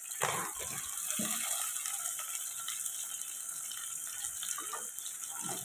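Hot oil sizzling steadily in a pot with fennel seeds, green chillies, garlic and freshly added shallots, with a few soft knocks in the first second and again near the end.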